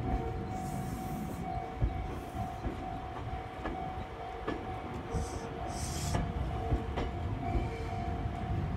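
Meitetsu 2200-series and 3150-series electric train cars rolling past close by, towed without their own motors running. Their wheels rumble on the rails and knock over rail joints now and then, over a faint steady whine.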